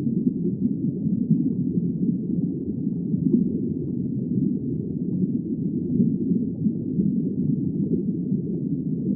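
Underwater ambience: a steady, muffled low rumble of water with no distinct events.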